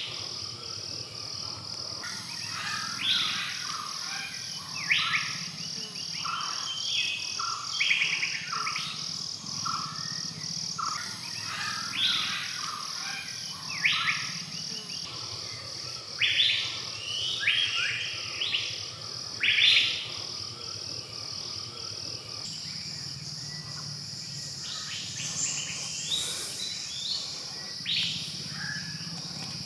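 Forest birds calling with many short chirps and whistles, over a steady, fast-pulsing insect drone.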